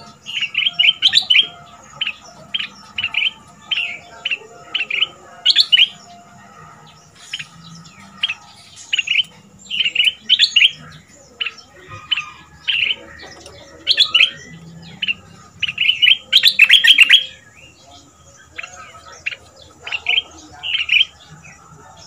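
Caged stripe-throated bulbul, a trained decoy bird, singing: short, loud, chirpy phrases repeated about once a second in bouts, with brief pauses between them.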